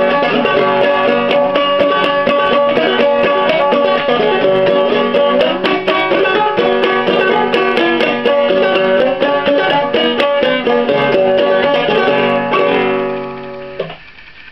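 Clawhammer banjo in open G tuning picking a quick, driving instrumental run, ending on a final chord that rings for about a second before being cut off sharply.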